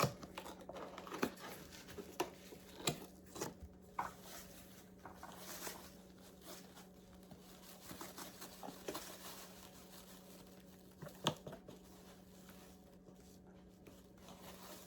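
Borax powder being poured and scooped into a measuring cup: faint rustling with scattered light knocks of the container and cup.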